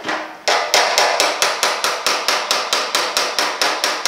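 A body hammer tapping a steel truck running board against a dolly held behind the panel, knocking down high spots in the sheet metal. A couple of separate blows, then steady ringing metal taps about four a second.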